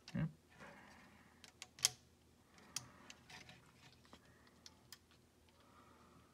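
Small plastic parts of a Microsoft Surface Precision Mouse clicking and tapping as an internal piece is pressed back into the opened shell by hand: a scatter of light, irregular clicks, the sharpest a little under two seconds in.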